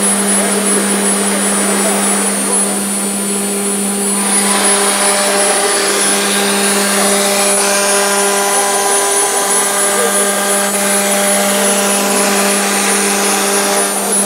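CNC router spindle running at a steady speed with a constant hum and high whine as its bit cuts into a wood-based board, the cutting hiss growing fuller from about four seconds in.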